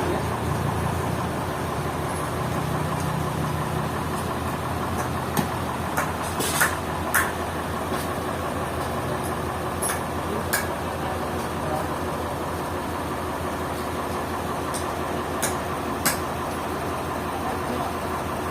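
An engine of the sawmill machinery running steadily at idle, with a few sharp knocks, the loudest a quick group about a third of the way in.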